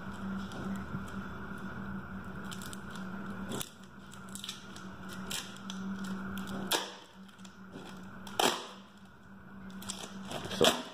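Plastic perforated release film crinkling and tearing as it is peeled by hand off a carbon fiber tube, with sharp crackles about two-thirds of the way in and a quick cluster near the end. A steady low hum runs under the first few seconds and then stops.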